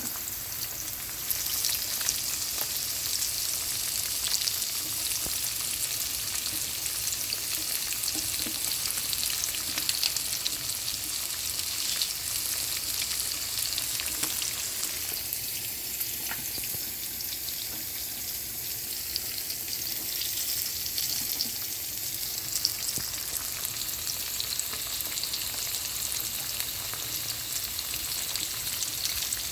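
Flour-dredged striped bass frying in olive oil: a steady sizzle with scattered small crackles and pops.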